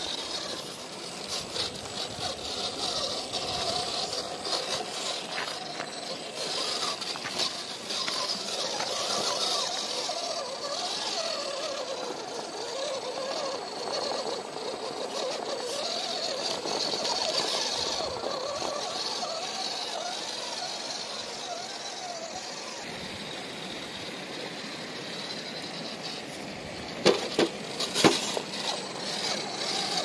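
Electric motor and gears of a Redcat Gen8 RC rock crawler whining, the pitch rising and falling with the throttle as it crawls over rock. A few sharp knocks come about three seconds before the end.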